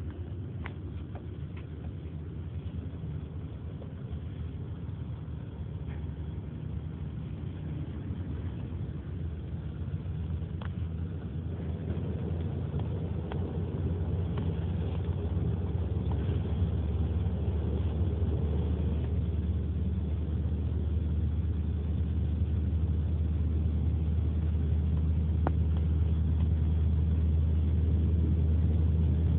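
Car road and engine rumble heard from inside the cabin, a steady low drone that grows louder partway through, with a few faint short clicks.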